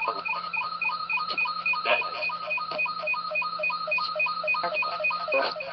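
Echovox ghost-box app on a tablet playing a fast, even stream of short chopped electronic beeps, about five a second, over a steady low hum, with a few sharp clicks.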